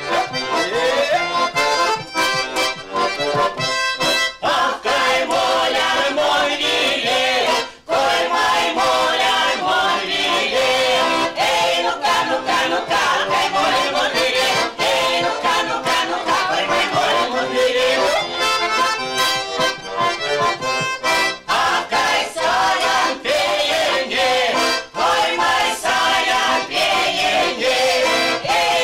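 Erzya chastushki (Mordovian folk ditties) sung by a group of women to accordion accompaniment, with a brief break about eight seconds in.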